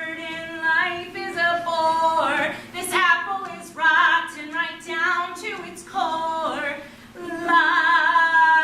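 Voices singing a song from a stage musical, phrase after phrase with long held notes.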